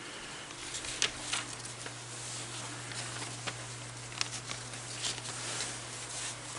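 Faint, scattered rustles and light clicks from hands handling paper stickers, over a steady low hum.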